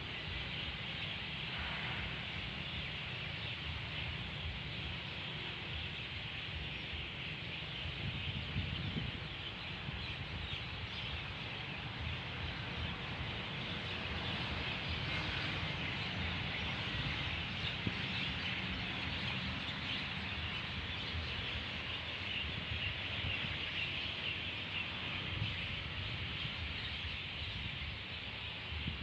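Outdoor night ambience: a steady, dense high-pitched chirring chorus with a low rumble underneath.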